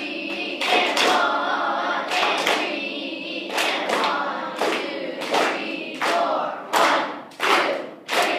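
A beginning band sounding held notes together over a steady beat of sharp hits, roughly three every two seconds. Over the last second or two the held notes fall away and the hits stand out alone.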